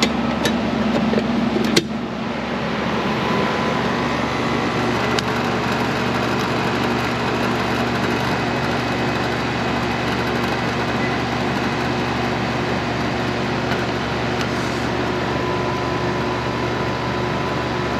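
York central air conditioner condensing unit running steadily after its failed run capacitor was replaced: the compressor hums and the condenser fan rushes air. A single sharp click about two seconds in.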